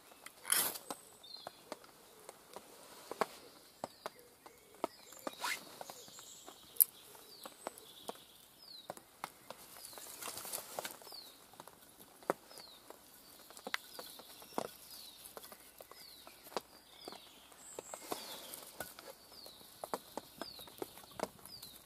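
A ferro rod scraped hard with a knife about half a second in, a sharp rasp throwing sparks onto feather-stick shavings. The shavings then catch and burn with scattered small crackles and ticks, and short high falling chirps repeat through the second half.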